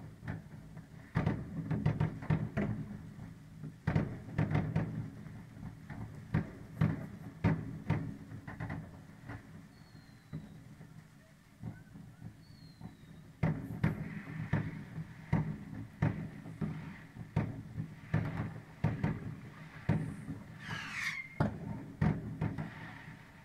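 New Year's Eve fireworks: rockets and firecrackers going off in irregular bangs, often several in quick succession, with a quieter stretch about halfway through. Near the end a firework gives a brief high whistle.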